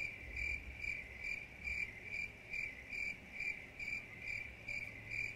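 A cricket chirping steadily, a little over two chirps a second, at low volume.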